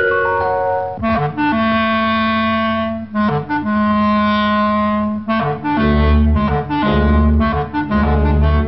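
Music from a 1940s cartoon soundtrack: a quick falling run of notes, then two long held notes, with low bass notes pulsing in from about six seconds in.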